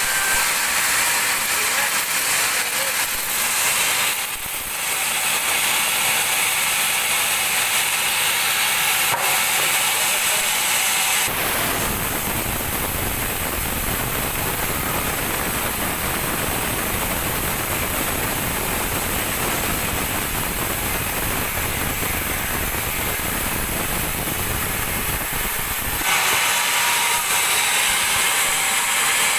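Large sawmill band saw running and cutting teak, a steady loud hissing noise. About 11 seconds in it abruptly changes to a fuller, deeper rushing sound for about fifteen seconds, then switches back to the thinner hiss.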